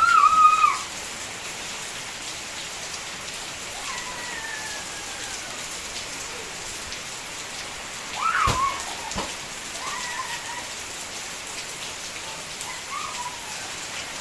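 Steady rain falling on the ground and roofs, with a few short high calls breaking through: a loud one at the start and another a little past halfway.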